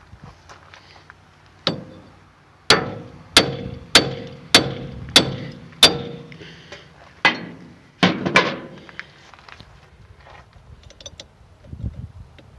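Wooden-handled sledge hammer striking a wheel stud in a car's wheel hub, about ten hard metal-on-metal blows, most of them a little over half a second apart, each with a short ring from the hub.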